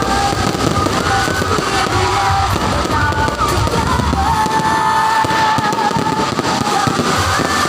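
Fireworks crackling and popping in a dense, continuous barrage, with music playing over it; the deep rumble underneath drops away about four seconds in.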